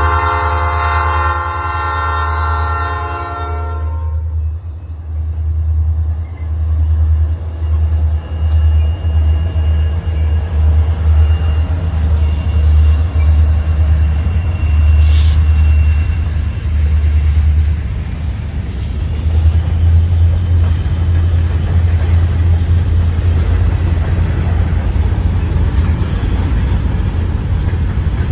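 Diesel freight locomotive's air horn sounding a chord that cuts off about four seconds in, then the locomotives and freight cars rolling past with a heavy low rumble. A thin high steady squeal runs under it, and a single sharp clank comes about halfway through.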